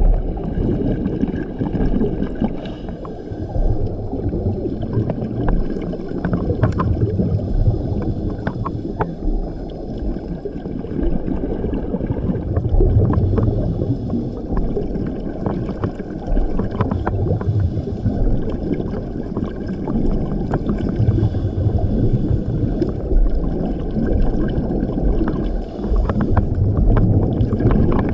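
Scuba regulator breathing underwater: a bubbling rumble of exhaled bubbles swells about every four seconds over steady low water noise, with scattered sharp clicks.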